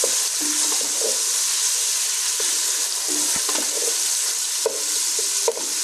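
Chopped onions and garlic sizzling steadily in hot oil in a pan as they are stirred, with a few short scrapes and knocks of the stirring utensil against the pan. The onions are being softened lightly, not browned.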